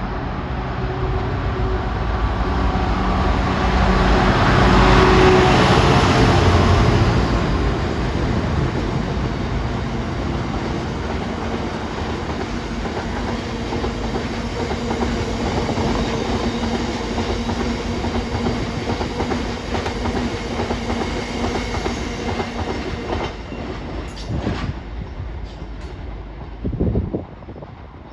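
A GBRf Class 66 diesel locomotive passing at speed, its two-stroke diesel engine loudest about five seconds in. A long rake of hopper wagons follows, rumbling and clattering over the rail joints, and fades away near the end.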